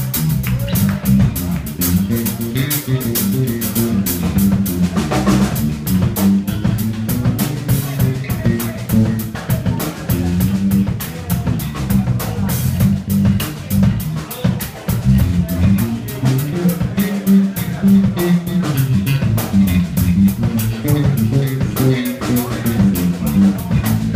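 Live blues band playing an instrumental passage with no vocals: two electric guitars, electric bass and a drum kit keeping a steady beat with busy cymbal strokes.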